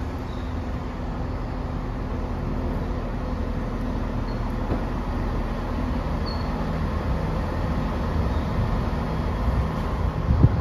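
Class 170 Turbostar diesel multiple unit rolling slowly into the platform, its underfloor diesel engines giving a steady low drone that grows slightly louder as the cab draws alongside. A sharp knock right at the end.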